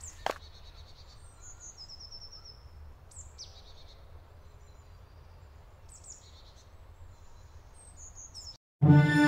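Forest ambience with small songbirds chirping and trilling now and then over a low steady background, and a short knock right at the start. Near the end the sound cuts out briefly and music with bowed strings begins.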